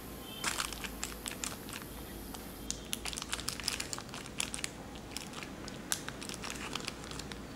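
Clear plastic sheet lining a container crinkling as a silicone spatula presses down the crumb-topped layer of an ice cream cake: a run of irregular crackles.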